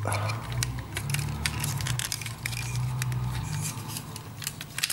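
Hard plastic parts of a Transformers action figure clicking and rattling as its back panels are pried loose and handled, with many small sharp clicks over a low handling rumble.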